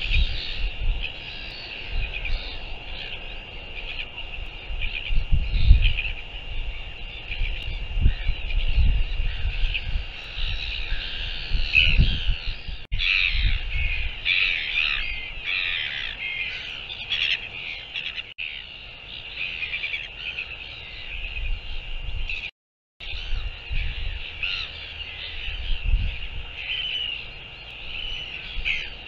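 A colony of seabirds calling without pause, with harsh, caw-like calls overlapping one another. Gusts of wind rumble low on the microphone, and a faint steady high whine runs underneath.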